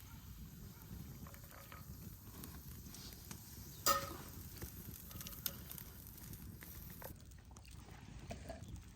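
Low, even background noise with scattered light ticks and knocks, and one sharp clink with a short ring about four seconds in.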